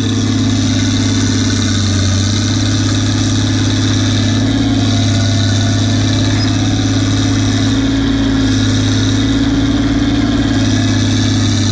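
Fiat FL10C crawler dozer's diesel engine running steadily and loudly, with small rises and falls in load as it works.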